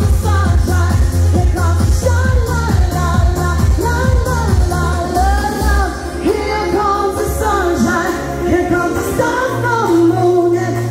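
A woman singing live into a microphone over pop backing music with a steady beat. The beat drops out about six seconds in, leaving her voice over held chords and a low bass note.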